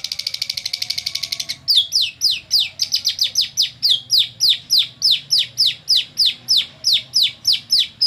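Lovebird singing a long canary-style song: a fast trill for the first second and a half, then a steady run of high whistled notes that each slide downward, about three to four a second.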